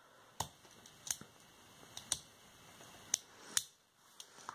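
Turning of a Maru Nano Cube's layers by hand, a miniature 3x3 plastic puzzle cube: short sharp clicks about once a second, with two close together past the middle and a few quicker ones near the end.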